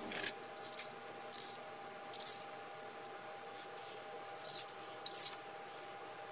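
Vegetable peeler shaving thin slices off a peeled ginger root: about six short scraping strokes at uneven intervals.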